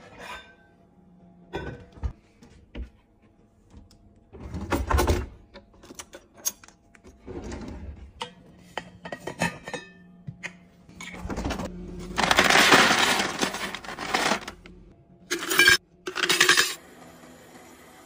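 Clinks and knocks of an insulated stainless-steel tumbler and its lid being handled on a kitchen counter. A louder rush of clattering noise lasts about two seconds a little past the middle, and two short sharp bursts follow.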